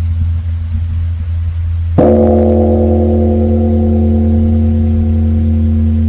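A large Korean bronze Buddhist temple bell (beomjong) struck once by its swinging wooden log striker about two seconds in, giving a sharp loud strike and then a long ring of many tones. Before the strike, the bell's deep hum from an earlier stroke is still sounding.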